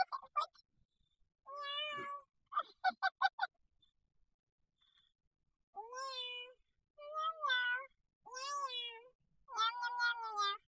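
Young child meowing in imitation of a cat: high calls that rise and fall in pitch. Short choppy meows in the first few seconds, then four drawn-out meows about a second apart.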